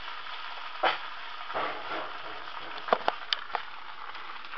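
An egg sizzling steadily in a nonstick frying pan, with a thump about a second in and a quick run of sharp clicks and knocks about three seconds in.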